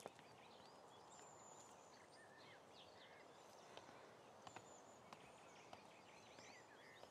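Near silence: faint outdoor ambience with scattered bird chirps and a few light ticks.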